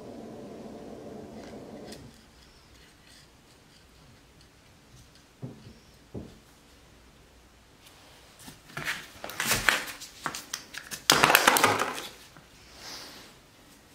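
Close handling noise from gloved hands working with a pick on a carburetor. A low steady hum stops about two seconds in. A couple of light taps follow, then crinkly rustling of the disposable gloves, loudest near the end.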